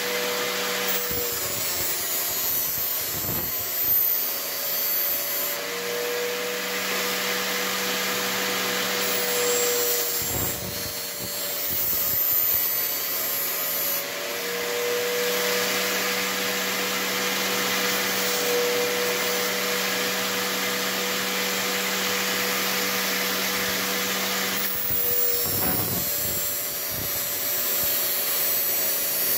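Angle grinder running steadily with a high motor whine while a steel knife blade is held against its spinning disc to sharpen the edge. The grinding hiss of steel on the disc changes several times as the blade is pressed on and moved along.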